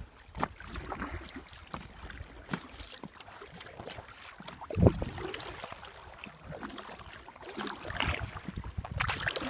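Paddling an inflatable kayak: irregular splashes and drips of paddle strokes in the water, with wind rumbling on the microphone and a louder knock about five seconds in.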